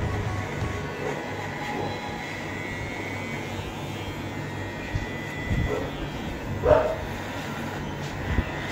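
Electric hair clipper running steadily with a motor hum as it cuts the lower hair down to zero for a skin fade. Two short pitched sounds break in past the middle, the second the loudest moment.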